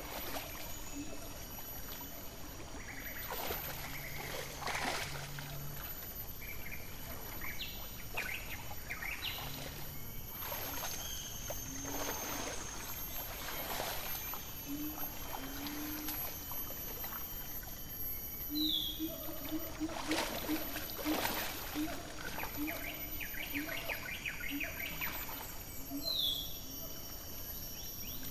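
Sumatran rhino wallowing in a mud pool, with wet sloshing and splashes of mud now and then. Under it run a steady high insect drone and short forest bird calls.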